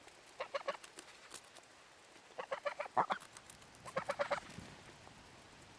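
Domestic geese giving three short runs of quick, clucking calls.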